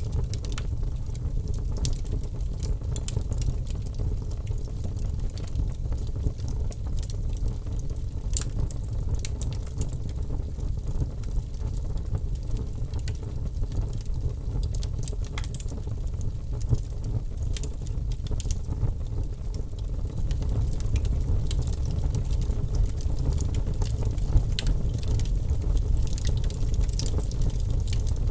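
Wood fire crackling: scattered sharp pops and snaps over a steady low rumble of the flames.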